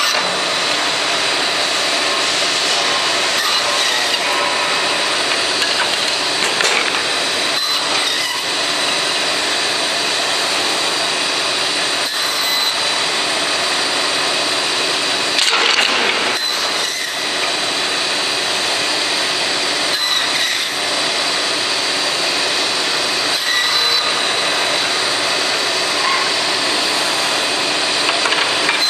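CNC band saw running and cutting stacked wooden blocks into spoon blanks: a steady loud whir with a thin high whine, a few sharp knocks, and a brief louder swell about halfway through.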